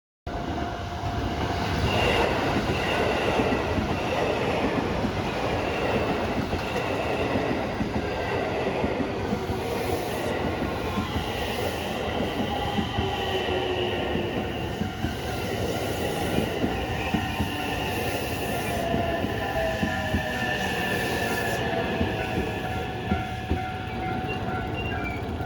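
Electric train running by at close range: steady wheel-and-rail noise with high squealing tones from the wheels. About twenty seconds in, a whine falls in pitch.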